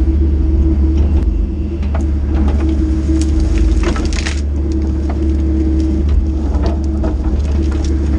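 Excavator's diesel engine running steadily, with scattered cracks and crunches as the machine works through brush and debris, and a brief scraping hiss about four seconds in.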